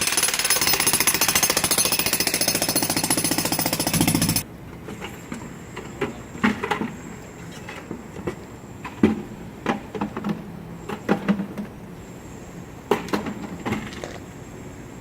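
Jackhammer breaking up a concrete pool deck, hammering loudly and continuously, then stopping abruptly about four and a half seconds in. After that come scattered knocks and clunks, with a faint steady high whine.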